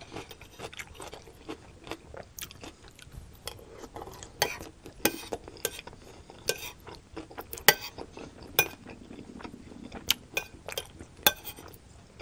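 Close-miked metal spoon clinking and scraping against a ceramic plate in irregular sharp clicks, with chewing of crunchy stir-fried celery and bok choy.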